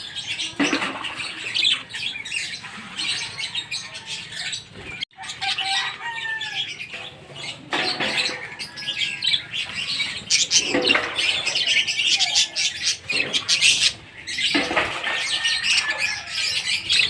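Many lovebirds chirping and squawking in rapid, overlapping calls, with wing flaps among them.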